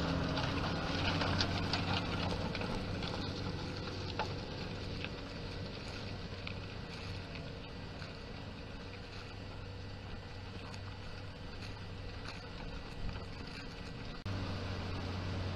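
New Holland T7 tractor's diesel engine running steadily with a low hum, growing gradually fainter, then abruptly louder again about fourteen seconds in.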